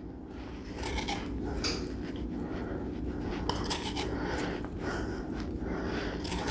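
Hand pepper mill grinding fresh black pepper, a run of short grinding twists that starts about a second in.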